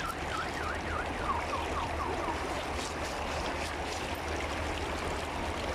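Steady rush of shallow river water flowing around a wading fisherman. A quick run of short high chirps sounds over it in the first two seconds or so.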